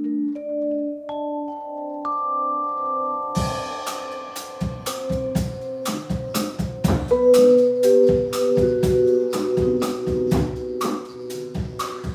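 Vibraphone playing a slow rising run of ringing, held notes on its own. About three seconds in a drum kit and band come in with a steady beat under the vibraphone's sustained notes.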